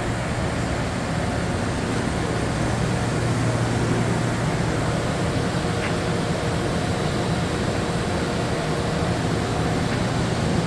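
Yama Seiki VP-2012HD CNC bridge mill running: a steady low hum under an even wash of machine noise.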